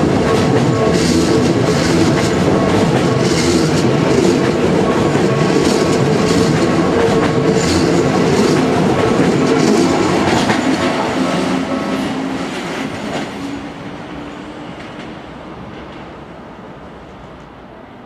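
Toei 5300-series electric train passing close by, its wheels clattering over rail joints in a quick regular beat. The last car goes by about ten seconds in, and the sound then fades away as the train runs off down the line.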